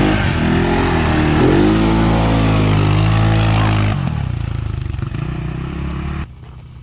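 Suzuki Eiger ATV's carbureted 400cc engine revving under load as it pulls big mud tires through a mud hole, its pitch rising and falling. About four seconds in it eases off, and the level drops sharply near the end.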